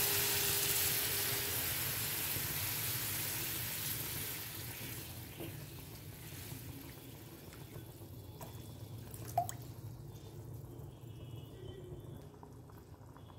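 Water poured into a hot pan of fried onion-tomato masala, hissing loudly at first and dying away over about five seconds as the pan cools. Then quieter stirring with a wooden spatula, with a few light knocks, one sharper about nine seconds in.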